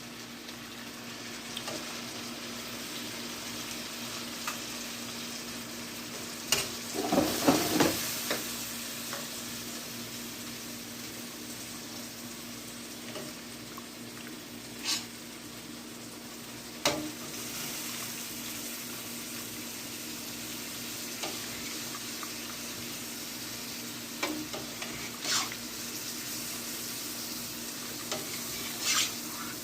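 A pot of sausage-and-chicken stew sizzling steadily on the stove while it is stirred, with a burst of clatter about seven seconds in and a few sharp knocks of the spoon against the pot.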